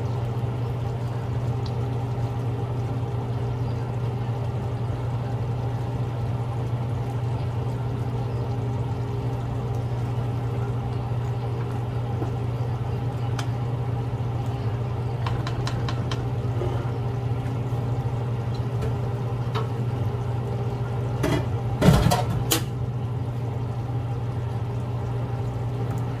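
Chicken curry simmering in a nonstick frying pan over a steady low hum. A plastic spatula stirs through it with small clicks, then knocks and scrapes against the pan late on, the loudest moment.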